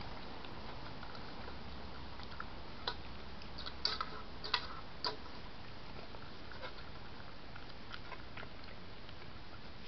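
Badger feeding at dishes: small clicks and ticks of its teeth and snout against the bowls, with a cluster of louder clicks about three to five seconds in, over a steady hiss.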